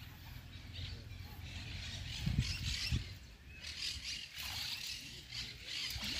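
Riverbank ambience: a low rumble on the microphone, with birds chirping faintly and two dull thumps about two and a half and three seconds in.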